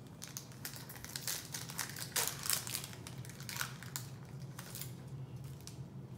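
Foil booster pack wrapper crinkling and crackling as it is handled and opened, a dense run of rustles that thins out near the end.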